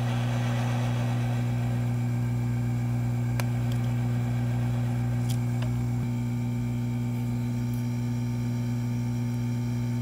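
Steady low electrical hum from the bench equipment with a faint hiss behind it, and a few faint light ticks in the middle.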